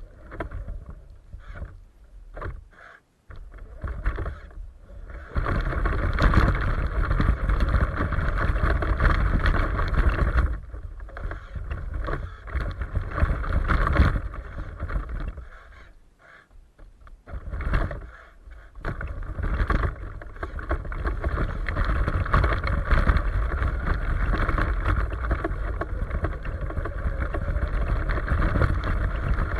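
Radio-controlled truck driving through snow, its motor and tyres running in short bursts at first, then steadily for long stretches, dropping off for a while in the middle.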